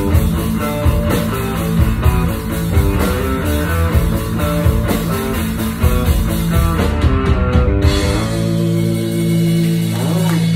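Live rock band playing loudly: electric guitars, bass and drum kit. About eight seconds in the drums drop out and the band holds one long chord.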